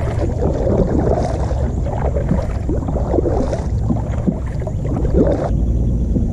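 Water gurgling and splashing along a kayak's hull as it is paddled, over a steady low rumble. The gurgling drops away abruptly about five and a half seconds in.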